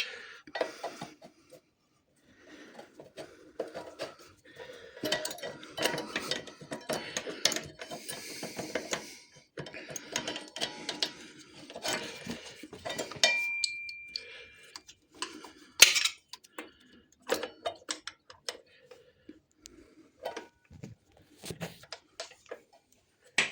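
Metal clinking and scraping as brake pads are worked back into a Honda NC750X's rear brake caliper. There are many scattered clicks, a brief high squeak about thirteen seconds in and a sharp click a few seconds later.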